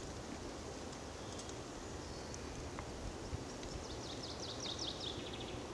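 Woodland ambience: a steady background hiss with a few faint high chirps, and about four seconds in a small songbird sings a quick run of about ten high notes lasting about a second and a half.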